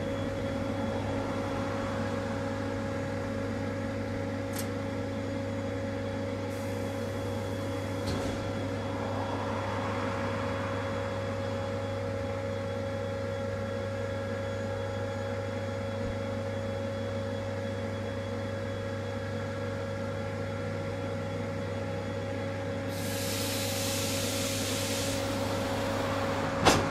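ED9M commuter electric train standing at the platform, its onboard equipment giving a steady multi-tone hum. A short hiss of air comes about 7 seconds in and a louder, longer one about 23 seconds in. A sharp click comes near the end.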